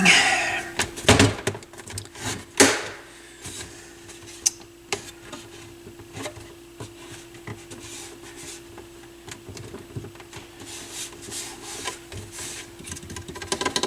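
Scattered clicks and knocks of hands handling and prying at the Dual CS 530 turntable's plastic case, over a faint steady hum.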